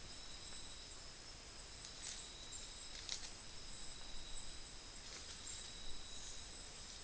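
Steady high-pitched insect chorus in the background, with a few faint brief noises about two, three and five seconds in.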